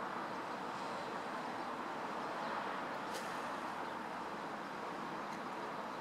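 Airbus A319's twin jet engines running at idle as the airliner taxis and turns onto the runway: a steady rushing hum with a faint, even drone beneath it.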